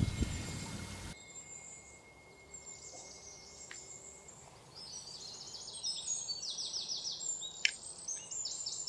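Outdoor ambience of small birds chirping in quick runs of short high notes, starting about halfway through, with one sharp click shortly before the end.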